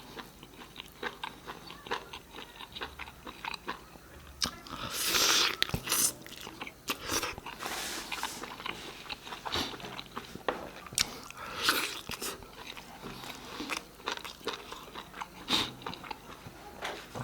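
Close-miked eating of a chicken leg piece in gravy: biting and chewing, with many short wet mouth clicks and several louder bites.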